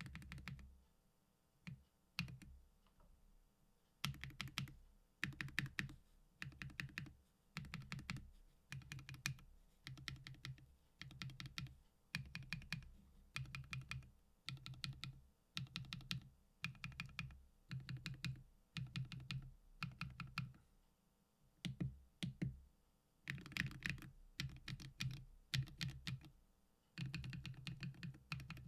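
Keys on a MechVault Vault 16 macropad with Gateron Lunar Probe linear switches and KAT Milkshake keycaps being pressed. A few single keystrokes come first, then quick runs of several keystrokes about once a second, with a denser stretch of continuous pressing about three-quarters of the way through.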